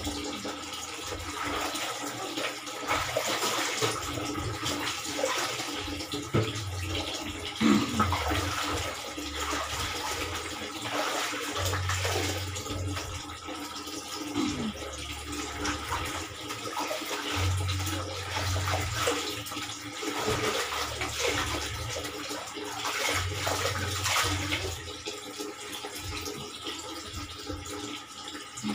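Water sloshing and splashing in a plastic basin as clothes are hand-washed: swished, squeezed and wrung out, with irregular splashes and drips.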